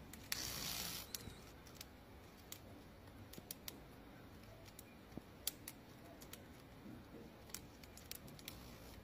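Praying mantis chewing on a hornet: faint, irregular crisp clicks and crunches as its mouthparts bite into the prey. A brief rustling hiss comes near the start.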